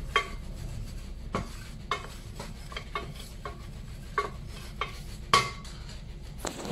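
Wooden spoon stirring ground spices in a stainless steel pan, with about ten light knocks against the pan, the loudest about five seconds in. Under it is a faint sizzle of the spices frying in hot olive oil.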